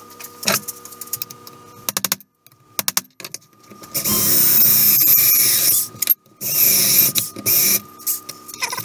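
Electric drill running, then boring into an aluminum plate: a steady motor hum at first, then from about four seconds in a loud, rough grinding as the bit cuts the metal, with a brief stop partway through.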